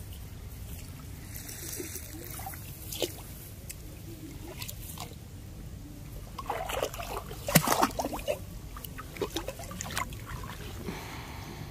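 Shallow rice-field water trickling and splashing, with a run of small sharp splashes in the second half, over a steady low rumble.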